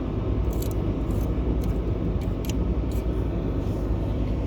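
Steady low rumble of a running vehicle engine, with a few light clicks.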